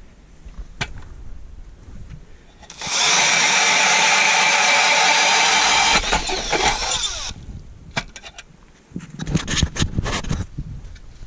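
Cordless Makita drill turning a Mora ice auger: it runs at full speed with a steady whine for about four seconds, then slows down. Irregular knocks and scrapes follow near the end.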